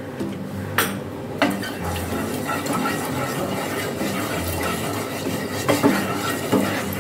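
Wooden spatula stirring and scraping around a non-stick frying pan with a little oil in it, with a few sharp knocks of the spatula against the pan about a second in and again near the end.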